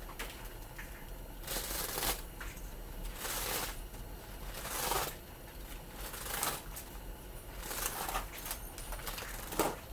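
Enamelled copper magnet wire being pulled and unwound off a small motor's coil by hand: a series of short, scratchy rustling strokes, one roughly every second or so.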